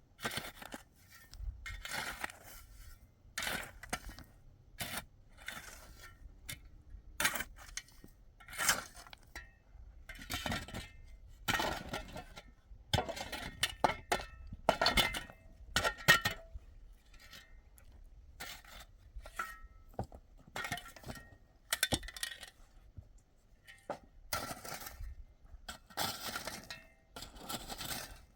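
Repeated short scraping and clinking strokes of hard objects, about one every second or so, some with a faint metallic ring.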